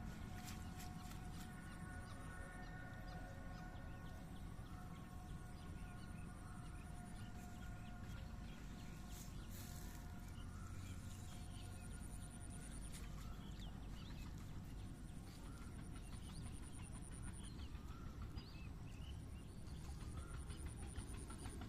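Faint outdoor ambience with scattered bird calls over a steady low rumble, and a high pulsing buzz that comes and goes.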